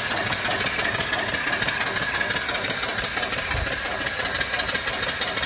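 Horizontal mill steam engine, 2¾-inch bore and 4-inch stroke, running steadily on live steam: a rapid, even beat of exhaust puffs over a steady hiss of venting steam.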